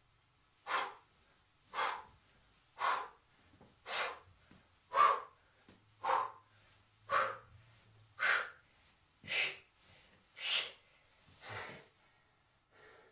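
A man breathing hard in a steady rhythm while exercising on a floor mat: short forceful breaths about one a second, eleven in all.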